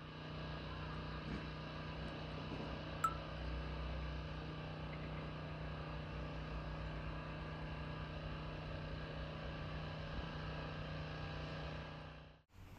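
Steady mechanical drone with a constant low hum, like a running motor or engine, unchanging throughout. It cuts off abruptly shortly before the end, and there is a small faint click about three seconds in.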